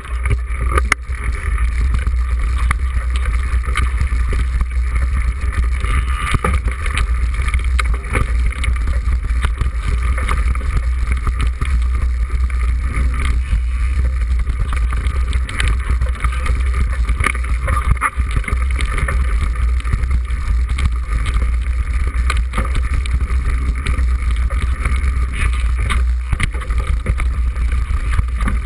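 Wind buffeting the microphone of a handlebar-mounted camera on a mountain bike riding downhill, a steady heavy rumble, with frequent small knocks and rattles from the bike jolting over rough ground.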